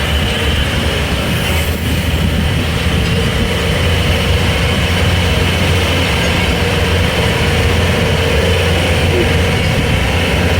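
Engine of a small tourist train running steadily as it carries passengers, heard from aboard: a loud, unbroken low rumble with a steady hum above it.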